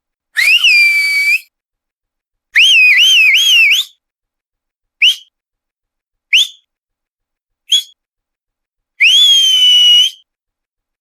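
A person whistling with the mouth, in insistent attention-getting calls. There are six whistles: a rising whistle held steady, then three quick upward swoops in a row, then three short rising chirps about a second and a half apart, and a final long whistle that rises and holds.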